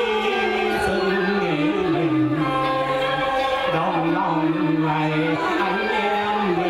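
Vietnamese chèo folk song performed live: a singer holds long notes that bend and glide, over traditional instruments such as the đàn tranh zither, bamboo flute and đàn bầu monochord.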